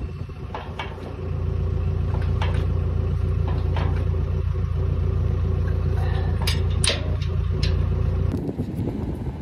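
A machine's engine running steadily, rising in level about a second in and cutting out near the end. Occasional sharp metal clinks come from a socket wrench on bolts in a steel base plate.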